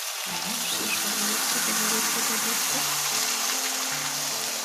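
Yeast pancake batter sizzling in hot lard in a stainless steel frying pan, just after being ladled in: a steady hiss.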